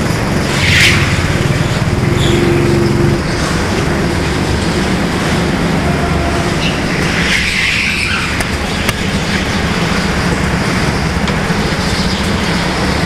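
Four-stroke petrol go-kart engines running, heard close up from the kart's own onboard camera with other karts around it. The sound is louder for the first three seconds, then drops, with a short high-pitched hiss about a second in and another around seven to eight seconds.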